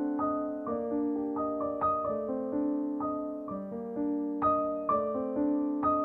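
Background piano music: a gentle melody of notes struck about twice a second over held lower notes.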